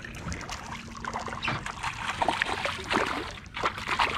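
A hooked crappie splashing and thrashing at the water's surface beside the boat: a run of irregular splashes that grows louder about halfway through.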